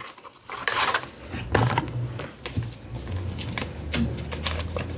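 Paper and card being handled: irregular rustling and light taps and clicks, with a faint steady low hum in the second half.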